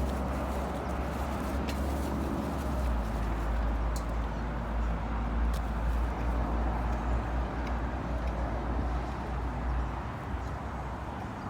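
Wind buffeting the microphone: a heavy low rumble with a rushing hiss over it, gusting unevenly and easing about ten seconds in.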